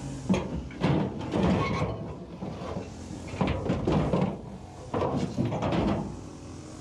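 Salvaged car body panels being handled and shifted, giving irregular knocks, clatters and scrapes in three bunches.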